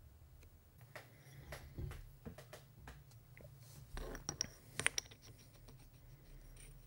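Faint scattered clicks and light metal knocks of hands handling engine parts, as a PowerSpark ignition flywheel is set onto the crankshaft end; a cluster of sharper clicks comes a little before five seconds in.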